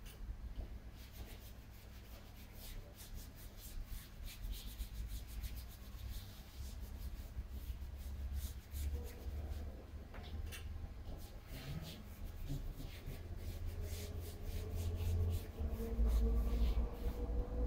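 Tyre rubber rubbing and scraping against a steel wheel rim on a tyre changer as the tyre is worked by hand, with scattered small clicks over a steady low hum. In the last few seconds a motor's whine rises slowly in pitch.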